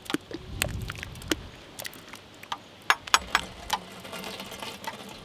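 Irregular sharp clicks and taps of a metal spoon against a stainless steel mesh strainer and pot while dragon fruit pulp is worked through the sieve, the loudest few about three seconds in.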